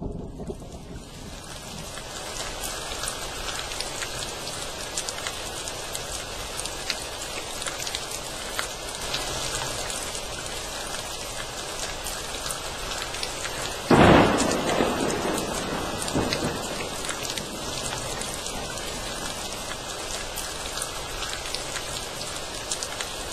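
Steady rain falling, with one thunderclap about fourteen seconds in that rumbles away over a couple of seconds.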